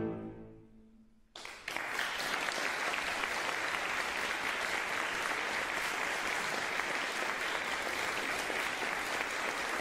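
The final cello-and-piano chord rings away to near silence, then about a second and a half in the audience breaks into steady applause.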